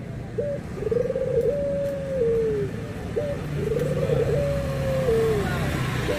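Barbary dove (puter) cooing: a coo repeating about every three seconds, each a short note followed by a long drawn-out phrase that falls at the end.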